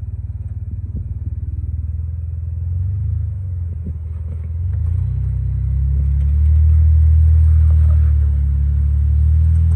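Jeep Wrangler's engine rumbling at low revs as it crawls over rock, growing louder about halfway through as it climbs and nears, with a few faint knocks.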